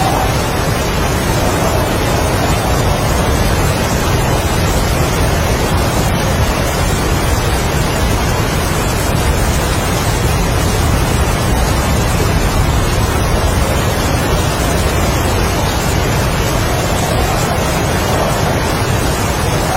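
Heavy rain and strong wind in a dense, steady rush of noise, the wind easing about a second in and swelling again near the end.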